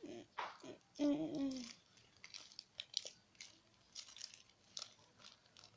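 Plastic packaging crinkling in short, irregular crackles and clicks while Fox white glue is squeezed out of it into a bowl.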